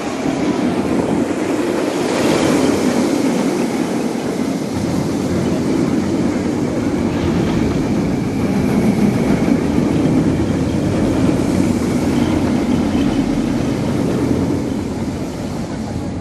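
Intamin VelociCoaster train running along its steel track: a steady rumble of wheels on the rails that eases off near the end.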